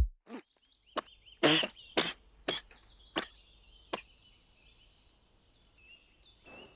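Music cuts off at the start, leaving faint bird chirping. Over it come about seven sharp taps or clicks, spaced half a second to a second apart, in the first four seconds.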